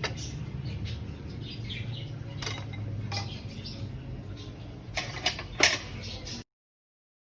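Metal clinks and clicks of tools and engine parts being handled while the serpentine drive belt is refitted over the pulleys. The clinks are scattered, the loudest bunched about five to six seconds in, over a low steady hum. The sound cuts off abruptly about a second before the end.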